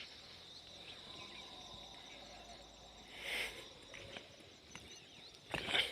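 Faint, steady insect chirring in the background, with a short soft swishing noise about three seconds in and another just before the end.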